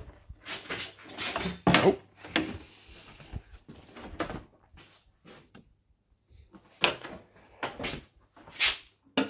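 Irregular knocks, scrapes and rustles of a plastic snowmobile hood being picked up, carried and set onto the machine, loudest about two seconds in and again near the end.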